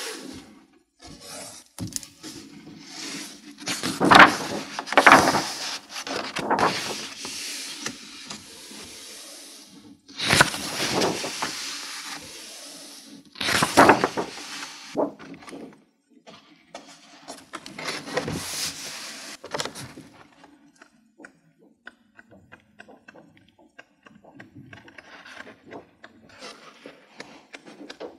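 Pages of a large-format, cloth-bound book of heavy Fedrigoni Tintoretto paper being turned and handled by hand: a run of paper swishes and rustles. The loudest page turns come in the first half, with softer rustling and small paper ticks near the end.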